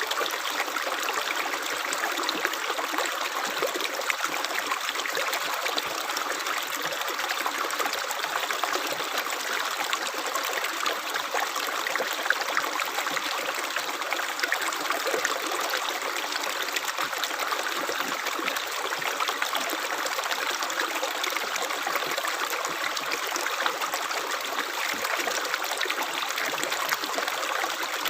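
Running water trickling and babbling steadily, like a small stream over stones, with no change in its flow.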